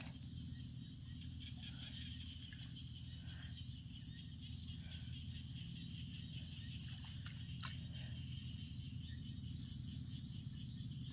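Bare hands digging and squelching in wet mud, soft and intermittent, over a steady low rumble and a constant high hum, with one sharp click a little past the middle.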